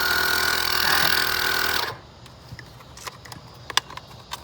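Small electric motor running with a steady whine and hiss for about two seconds, then cutting off suddenly; a few light clicks follow.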